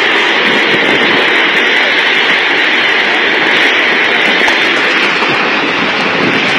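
Loud, steady rushing roar of tornado winds, with no break or change.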